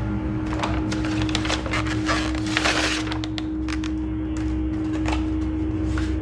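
Brown paper takeout bag rustling and crinkling as foam takeout containers are pulled out and set down on a wooden table, a string of crackles and light knocks that thins out after about three seconds, over a steady low hum.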